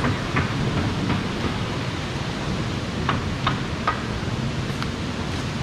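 Steady rushing of a rocky mountain river. Footsteps on a path of dry leaves and dirt: a couple near the start, then three quick ones about three seconds in.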